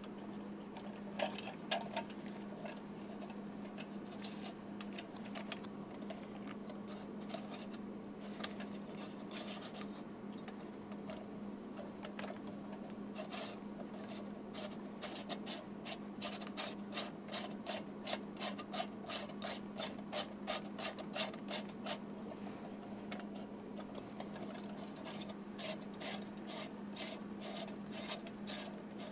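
Lens of a small solar spotlight being worked and twisted back onto its threaded housing: scattered light clicks and rubbing that turn into a quick, fairly regular run of clicks through the middle and later part, over a steady low hum.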